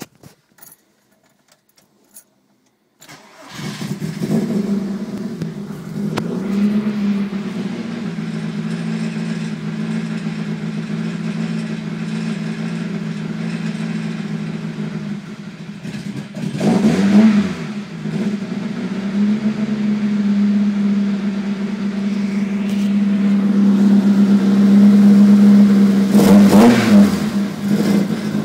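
Volkswagen 16-valve four-cylinder engine starting about three seconds in, then running at a high, rough idle. It is revved up and back down briefly twice. The engine refuses to idle below about 1500 rpm.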